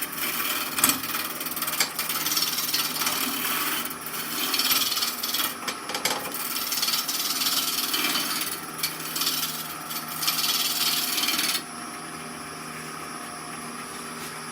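Spindle roughing gouge cutting a spinning green-wood branch on a wood lathe, a rough scraping hiss in uneven bursts as the branch is brought to round. About three-quarters of the way through the cutting stops, leaving the lathe's steady motor hum.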